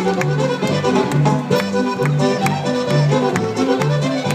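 Lively Mexican folk dance music led by fiddle, over a bouncing two-beat bass, with sharp taps keeping time throughout.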